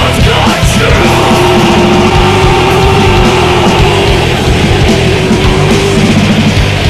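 Heavy rock band playing live and loud, with a long held note from about a second in until about five seconds in.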